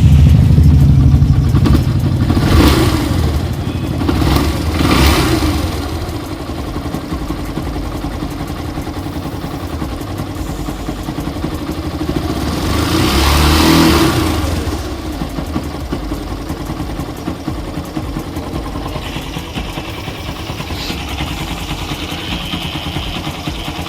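Yamaha SZ-RR single-cylinder motorcycle engine running just after starting, revved briefly twice in the first few seconds and once more, longer, about halfway, then settling to a steady idle. This is the engine after a repair on the magnet (flywheel) side, which the mechanic says has cured the knocking noise.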